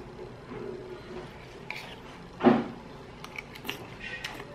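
Spoon and fork scraping and clicking against a ceramic plate while eating, with light clinks toward the end. One louder dull knock about two and a half seconds in.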